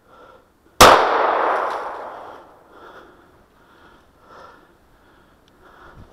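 A single handgun shot about a second in, its report echoing through the woods and dying away over the next second and a half. It is a signal shot, fired to call a hunting partner over.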